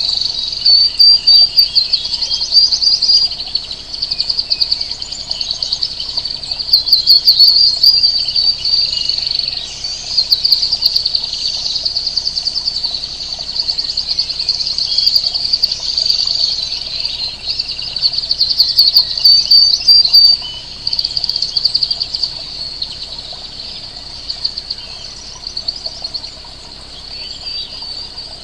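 Many small birds chirping and trilling together in a dense, high-pitched chorus, quieter after about twenty seconds.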